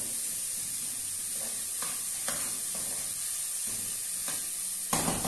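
Diced onion and garlic sizzling in hot oil in an aluminium caldero, with a metal spoon scraping and tapping against the pot as it is stirred. A louder knock of the spoon comes near the end.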